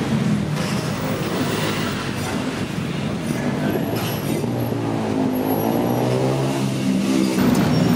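Street traffic: vehicle engines running steadily, with one engine bending in pitch about five to six and a half seconds in. A few faint knocks of a cleaver on a wooden chopping block sound over it.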